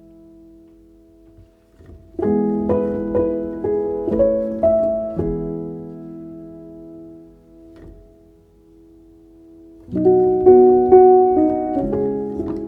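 Background piano music: a run of notes starts about two seconds in and rings out slowly, then another phrase starts near the end.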